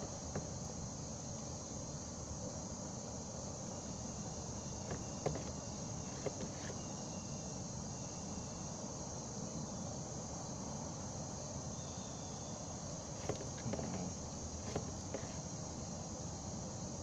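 Steady high-pitched chirring of insects, with a few light clicks and taps scattered through it.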